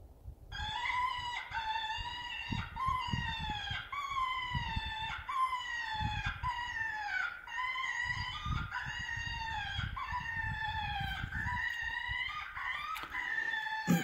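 Animal distress or prey call played through an electronic game caller's speaker: a long string of wailing cries, each falling in pitch, about one and a half a second, starting about half a second in.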